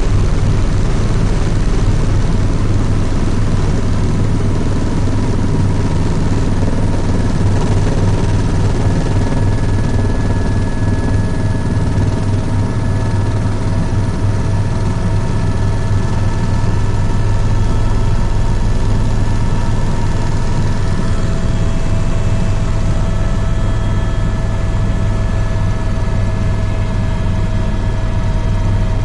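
Helicopter in flight: a steady low drone of rotor and engine, with several faint steady whining tones above it.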